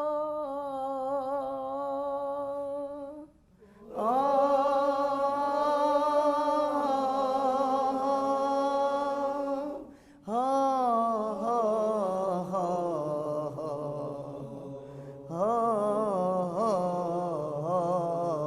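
A man's voice singing a wordless vocal exercise in maqam Hijaz Kar: long held notes with vibrato and melismatic turns, in four phrases broken by brief pauses for breath.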